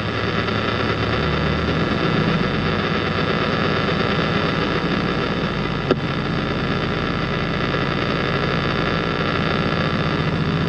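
Steady vehicle engine hum under a constant wash of road and cab noise, the engine note stepping up slightly about two seconds in. A single sharp click about six seconds in.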